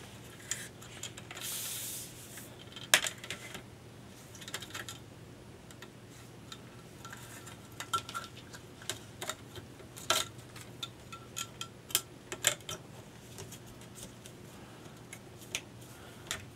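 Light clicks, taps and rubs of a multimeter's plastic front panel and keypad circuit board being handled on a bench. There is a short scraping hiss about a second and a half in, and sharper clicks about three, ten and twelve seconds in.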